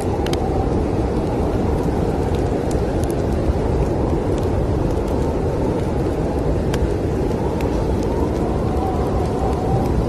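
Steady low snowstorm wind with scattered sharp pops and crackles from a wood fire.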